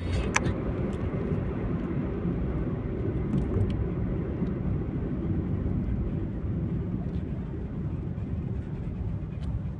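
Road and engine noise heard inside a moving car's cabin, a steady low rumble, with a single sharp click about half a second in.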